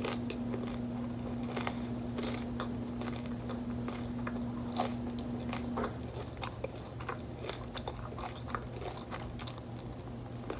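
Close-mic'd chewing of a crunchy hard-shell taco: irregular crisp crunches of the shell between softer chewing, over a steady low hum.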